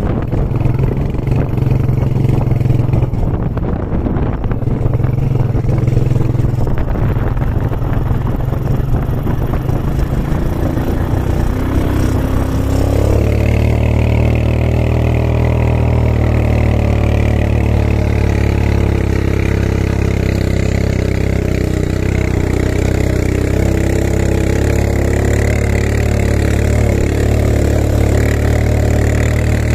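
Quad bike (ATV) engine running while riding over sand. It is rough and uneven for the first dozen seconds, then settles into a steady engine drone from about thirteen seconds in.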